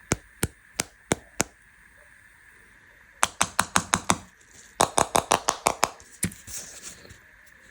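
Sharp tapping clicks on candy packaging. First a slow run of about three taps a second, then two quick bursts of rapid tapping, a single tap, and a soft rustle near the end.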